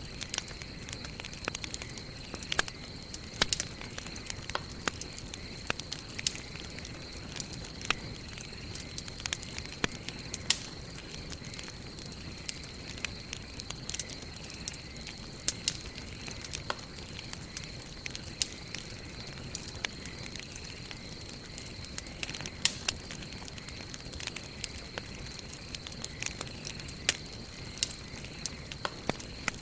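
Wood campfire burning, with frequent irregular sharp crackles and pops over a steady low hiss of the flames. A thin, steady high tone runs underneath.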